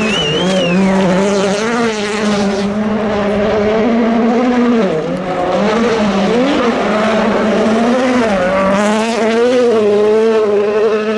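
World Rally Car engine at full throttle, its pitch rising and dipping repeatedly as the car drives the stage.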